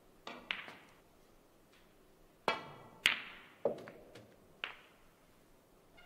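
Snooker balls clicking: the cue tip striking the cue ball and the balls knocking into each other and the cushions, about seven sharp clicks with the loudest pair about halfway, the first of them ringing briefly.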